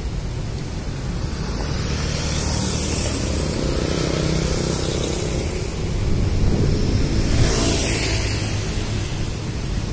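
A small motorbike engine passing close by, loudest around the middle, over a steady low rumble of street noise.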